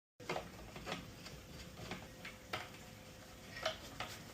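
Faint, scattered light clicks and taps of small screws and plastic radio mounting brackets being handled and screwed to a car radio fascia with a hand screwdriver.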